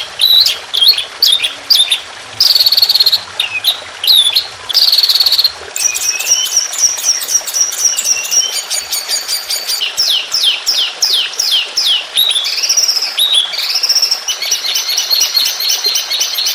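Songbird song from a bird-song training recording: a fast, varied run of high short whistles, quick series of falling notes and rapid chattering trills, with barely a pause.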